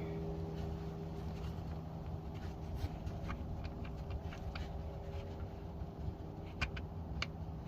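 Faint scattered clicks and ticks of a metal fastener being threaded on by hand onto a Toyota Corolla's neutral safety switch, over a steady low hum.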